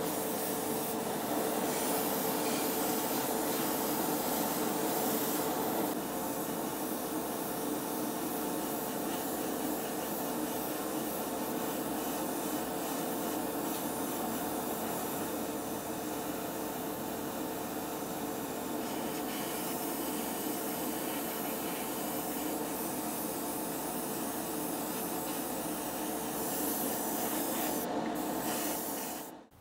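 Airbrush spraying paint, a steady hiss of air, over the steady hum of a spray booth's fan. The sound cuts off abruptly near the end.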